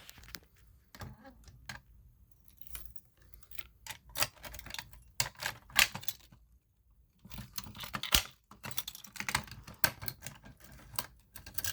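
A ring of keys jangling and clicking as it is handled, in quick irregular clusters with a pause about six seconds in.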